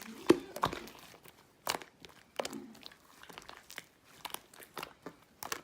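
Slime being squeezed and poked in the hands, giving irregular wet pops and crackles.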